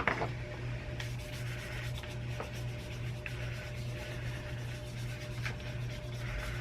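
Light rubbing and scattered small clicks from handling and cleaning a computer mouse's plastic parts, with one sharper click right at the start, over a steady low hum.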